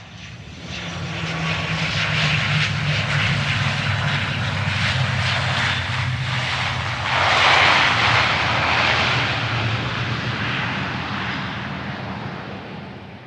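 An airplane flying past. Its engine hum swells in from silence, peaks with a loud rush of noise a little past halfway, then fades away.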